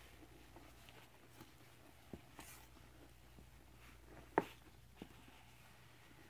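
Scrub Daddy sponge squeezed by a rubber-gloved hand in foamy cleanser in a plastic bucket: faint wet squishes with a few short squelching clicks, the loudest a little after four seconds in.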